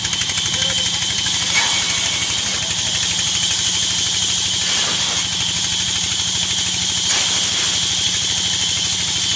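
A large band saw is cutting firewood logs, with a steady high blade hiss over the even drone of an engine. The sound rises briefly about three times as pieces of wood are pushed through the blade.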